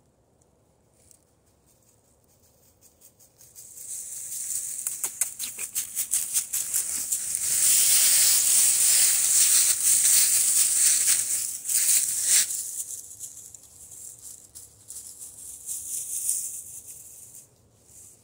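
Footsteps crunching and rustling through a thick layer of dry fallen leaves. They start a few seconds in, are loudest in the middle, then fade.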